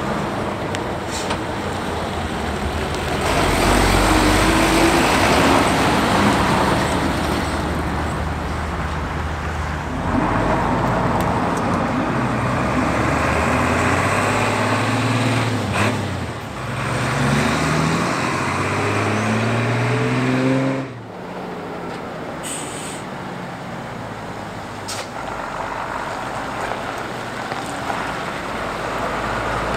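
Japanese medium-duty diesel trucks driving, in successive clips. First one swells loud as it passes on a road. Then an engine rises in pitch several times as the truck accelerates through its gears, cutting off suddenly about two-thirds of the way in, and a quieter truck engine rumbles on.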